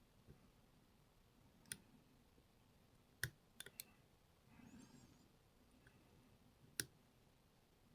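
Faint, sparse clicks of a lock pick working the pins of a pin-and-slider challenge lock under light tension: about five sharp ticks spread out, two of them in quick succession in the middle, with a brief faint scrape of the pick in the keyway between them.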